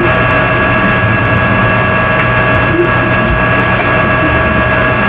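Loud, steady hiss and hum with several steady whining tones running through it, like the boosted noise floor of an amplified recording. No distinct barks stand out.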